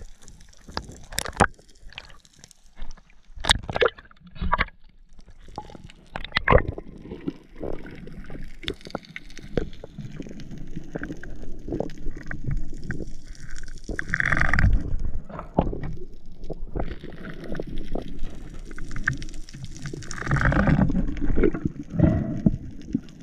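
Underwater sound picked up by a camera in its housing: sharp clicks and knocks through the first several seconds, then a low rushing and gurgling of moving water, surging louder a little past halfway and again near the end.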